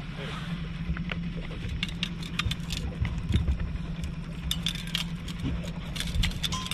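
Outboard motor running steadily at low trolling speed, a constant low hum, with scattered clicks, rattles and a few knocks from fishing gear being handled while a fish is reeled in.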